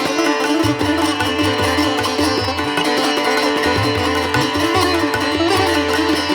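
Background music: a plucked-string melody over a steady drone, with low drum beats.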